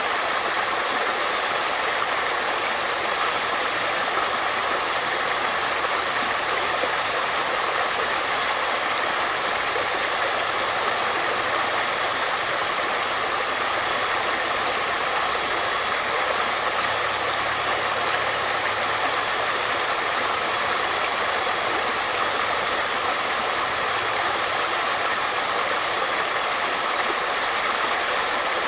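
Flowing water running steadily: an even, unbroken rushing hiss that holds the same level throughout.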